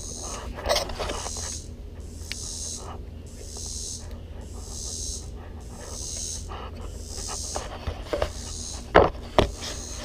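Heavy breathing close to the microphone, a hissing breath about once a second. Near the end come a few sharp clicks and knocks as the mower deck's hitch pins and their wire clips are pulled.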